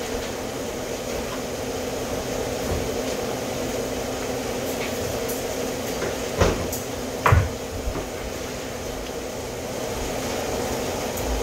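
Steady mechanical hum in a kitchen, with two sharp knocks about six and seven seconds in.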